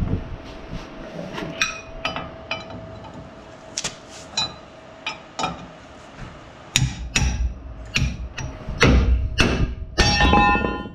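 Hammer blows on a steel pickle fork driven between the lower ball joint and the steering knuckle of a Chevy Silverado 2500HD front end, to separate the worn ball joint from the knuckle. Lighter, spaced metallic strikes at first, then heavier, faster blows with a clear metallic ring over the last few seconds.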